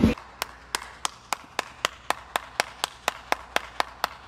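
One person clapping slowly and steadily, about four claps a second.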